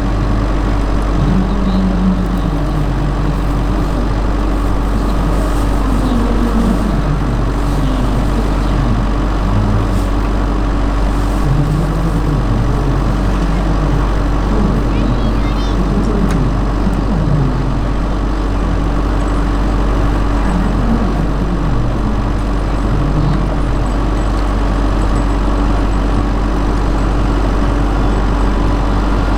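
Radio-controlled scale Bell 230 model helicopter running with a steady drone from its motor and rotors.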